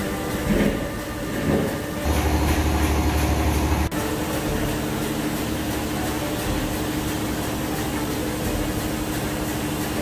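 Industrial solvent-washing machine running in its 40-bar high-pressure wash cycle: a steady mechanical hum with a held tone. A louder low rumble joins about two seconds in and cuts off sharply near four seconds.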